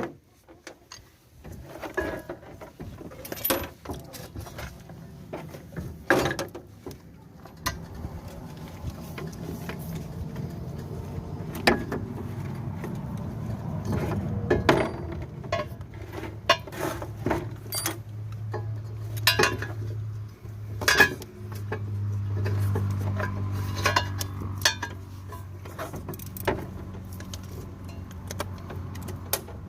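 Irregular metallic clinks and knocks as a new outer CV joint and its parts are handled and worked onto a car's half shaft, over a steady low hum that sets in about a quarter of the way through.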